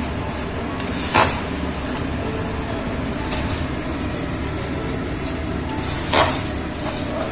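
Flat metal spatula scraping and stirring a thick masala paste around a steel kadai while it fries down, with two louder scrapes of metal on metal, about a second in and near the end, over a steady background noise.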